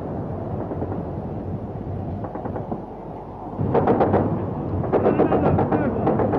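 Rapid anti-aircraft gunfire in quick bursts of several shots a second, louder from just past halfway.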